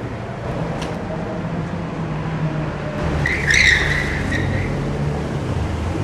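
Car traffic running with a low rumble, and about three seconds in a tyre squeal lasting about a second, from a yellow Ferrari 360 sports car driving on the road.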